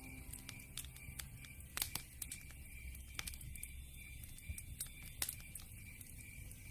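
Wood fire crackling: irregular sharp pops and snaps over a low steady rumble of flames, with the sharpest pops a little under two seconds in and again about five seconds in.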